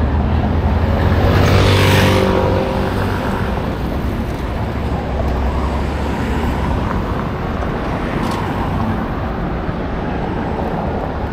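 Street traffic: a steady low rumble of engines, with one vehicle passing close about two seconds in, its hiss swelling and fading away.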